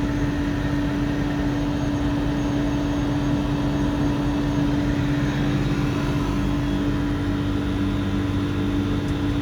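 Outdoor air-conditioner units running: a steady mechanical hum with one constant mid-low tone over a fan-like rush.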